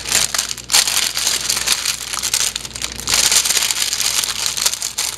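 Baking parchment paper crinkling and rustling as it is folded and creased by hand into a parcel, with brief pauses between folds.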